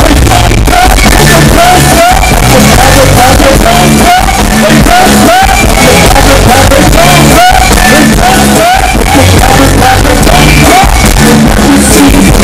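Live go-go band playing loud over a steady percussion-driven beat, with a vocalist singing and shouting into a microphone.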